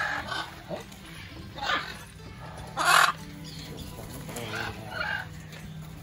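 Macaws screaming: several separate loud squawks, the loudest about three seconds in.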